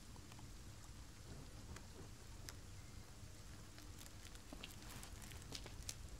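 Faint steady low hum with scattered small clicks and taps, which come more often in the last two seconds.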